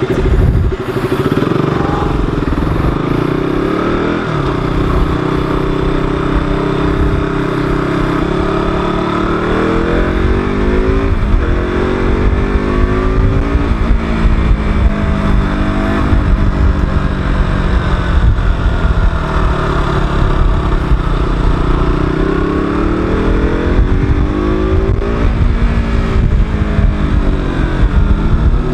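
KTM RC motorcycle's single-cylinder engine running under way, its pitch repeatedly rising with the throttle and falling back as the rider shifts and eases off.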